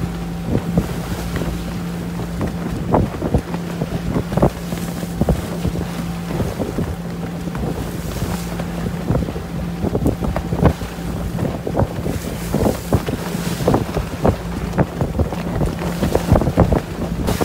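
Wind buffeting the microphone, with sea water rushing and splashing along the hull of a sailing yacht underway in a building swell. A steady low hum runs underneath.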